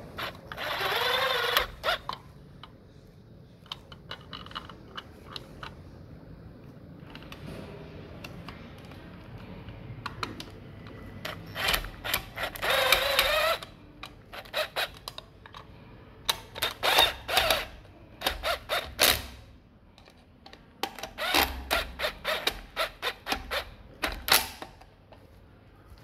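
Cordless drill-driver with a screwdriver bit driving the screws of a plastic wall plate, its motor running in bursts: two longer runs with a rising whine, about a second in and near the middle, then a string of short trigger pulses in the second half.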